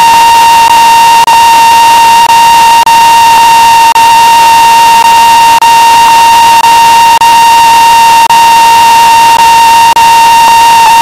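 Analog TV set receiving no signal after the station's analog transmitter has gone off the air: loud static hiss with a steady high whine near 1 kHz running through it, broken by short irregular dropouts.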